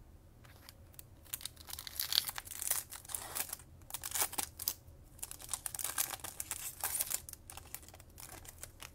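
Foil wrapper of a Topps Chrome baseball card pack crinkling as it is handled and torn open, starting about half a second in as an irregular crackling with a couple of brief pauses.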